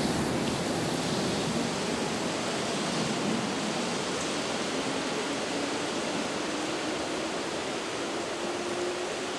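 Steady hiss of heavy rain over a departing Keihan 2400 series electric train. The train's traction motors give a faint whine that rises slowly in pitch in the second half as it accelerates away.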